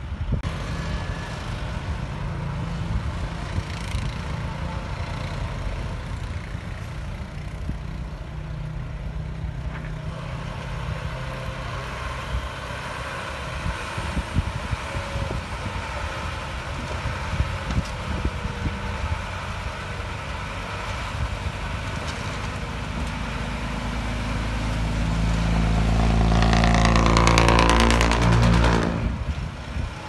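Dump truck's diesel engine running steadily, then revving up for several seconds near the end to drive the hydraulic hoist raising the tipper bed, the revs dropping away sharply just before the end.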